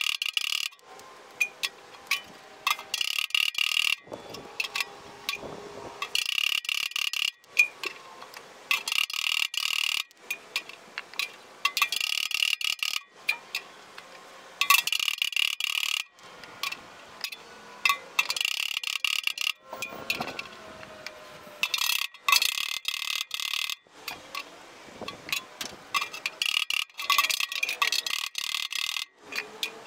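Steel body slapper striking a steel door skin over a hand-held dolly, in bursts of quick metallic taps, each about a second long, with short pauses between. It is panel-beating work to straighten the edge of a newly folded door skin.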